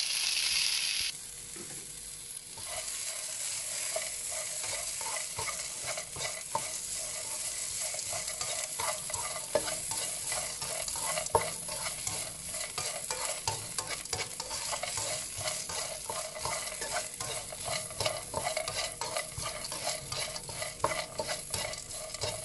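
Boiled potato cubes dropped into hot oil in a pan, with a short loud sizzle as they land. Then a steady frying sizzle as a spatula stirs and scrapes them around, with many small clicks against the pan.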